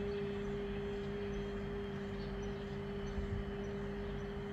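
A woman's voice holding one long, steady "hee" tone on the exhale, without breaks, as a relaxation breathing exercise.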